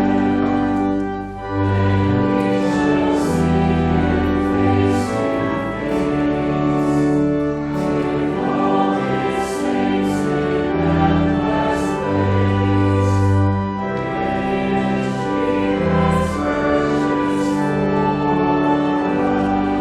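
Voices singing a hymn to organ accompaniment, with long held chords and a steady bass line.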